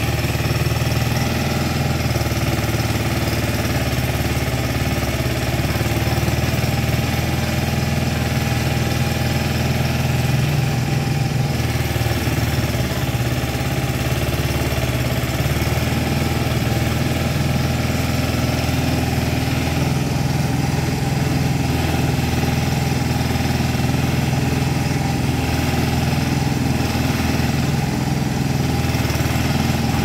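Engine of a small movable backhoe running steadily as its hydraulic boom digs and swings.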